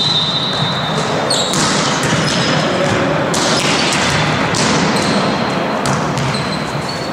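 Volleyball being passed and set by hand in a large sports hall: sharp smacks of the ball on forearms and hands, several of them about a second apart, each echoing in the hall.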